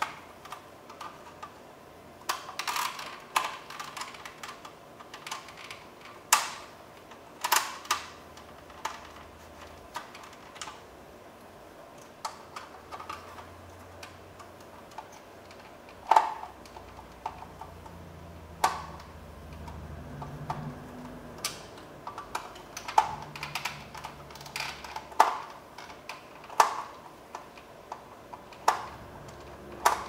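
Irregular sharp clicks and taps of a Phillips screwdriver against a plastic power window switch panel as the switch's three screws are backed out.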